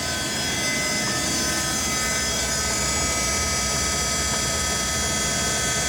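The power drive of a 1961 LeBlond 4025 NK sliding-bed gap lathe running steadily as the bed slides closed toward the spindle: an even machine hum with steady whining tones.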